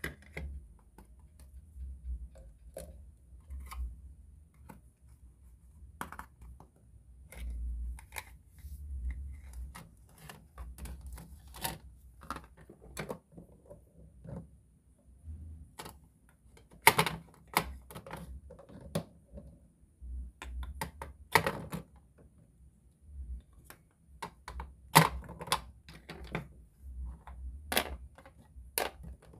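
Plastic toy food pieces and toy kitchen parts clicking and clacking as they are picked up and set down on plastic trays and baskets: irregular sharp taps, with a few louder knocks.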